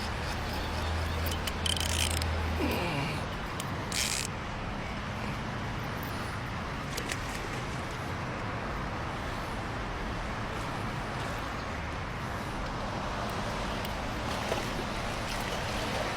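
Steady outdoor background noise with a low hum that stops about three seconds in. Sharp clicks come about two and four seconds in, and a short falling tone comes just before three seconds.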